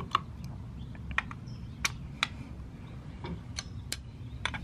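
Light, irregular metal clicks and ticks, about nine of them, as a T-handle hex key works the bolts of a motorcycle shifter shaft support, snugging each bolt a little at a time. A steady low hum runs underneath.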